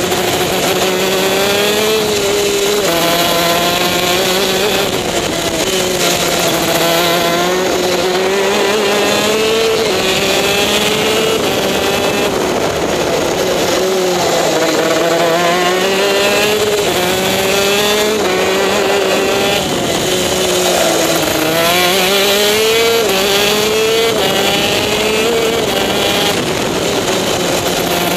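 TM K9C 125cc two-stroke shifter kart engine at racing speed, its revs climbing and dropping again and again as the kart is driven hard through the corners and shifted through its six-speed gearbox.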